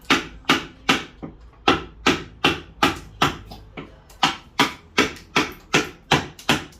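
Mallet striking a carving chisel into pine, a steady run of sharp taps about three a second, as the background is cut away for relief lettering on a signboard.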